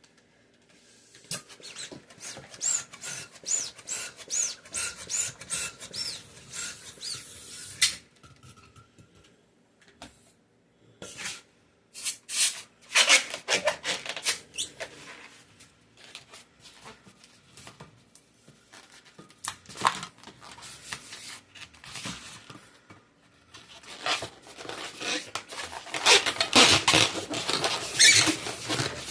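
Latex twisting balloons squeaking and rubbing as they are handled and twisted: a run of short rising squeaks in the first several seconds, then bursts of rubbing and crackling that get denser and louder near the end.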